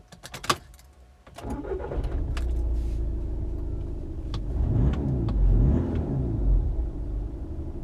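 A few sharp clicks, then the VW Golf GTD's 2.0 TDI four-cylinder diesel cranks and starts about a second and a half in and runs on. Near the middle it is revved a couple of times, its pitch rising and falling.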